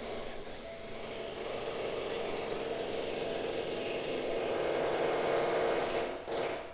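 Steady mechanical rattling and rumble that builds slowly, peaks about five seconds in and drops away sharply just after six seconds.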